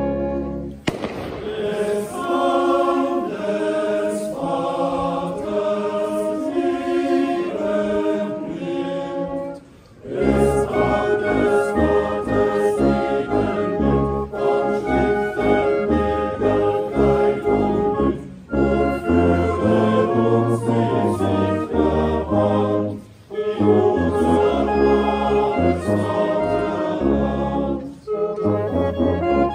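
Choir singing a carol with a brass band accompanying, in phrases with short breaks between lines. The low brass notes come in fuller about a third of the way through.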